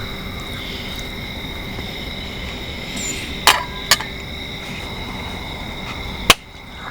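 Insects trilling steadily in an unbroken high drone. A few sharp clicks or knocks come midway, and a louder one comes near the end.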